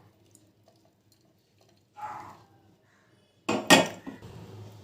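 Kitchen utensils clinking while a hot herbal kadha is strained: a short scrape about two seconds in, then a sharp clatter of a pot against the strainer or cup about three and a half seconds in, with quieter handling after it.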